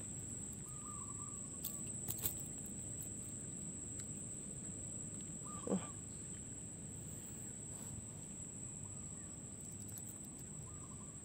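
Faint outdoor ambience: a steady high-pitched whine under a low haze, with a few faint short chirps, a brief falling call about halfway through and a couple of small clicks early on from handling.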